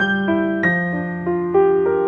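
Background piano music: a slow melody of single notes, struck every third of a second or so and left to ring, over held low notes.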